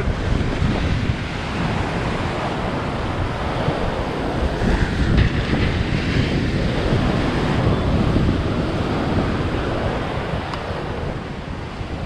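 Surf breaking and washing up a sandy beach, with strong wind buffeting the microphone.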